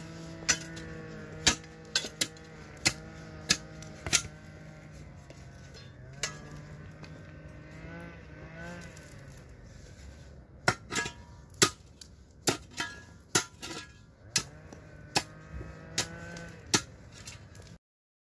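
A spade blade chopping into stony ground, giving about fifteen sharp, irregular strikes that come thickest in the second half. A steady pitched drone hums underneath, and everything cuts off suddenly near the end.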